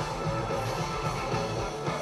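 Live rock band playing through a large outdoor PA, electric guitars and bass carrying a dense, steady wall of sound.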